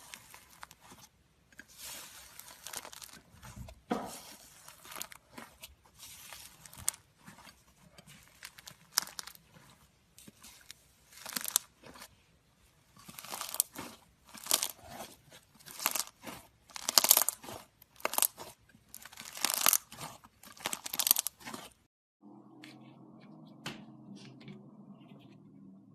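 Iceberg slime's dried, crusty top layer crackling and crunching as it is pressed and squeezed, in repeated bursts that get louder and denser in the middle. A few seconds before the end the crunching stops and a steady low hum takes over.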